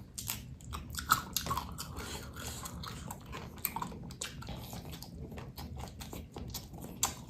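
Close-miked mukbang eating: a person chewing food, with frequent irregular wet mouth clicks and smacks.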